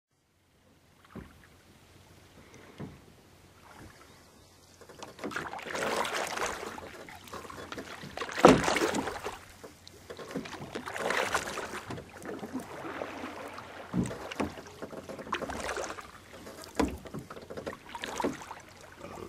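Small waves lapping on a stony lake shore, washing in and drawing back every two to three seconds, with a few sharp clicks in between.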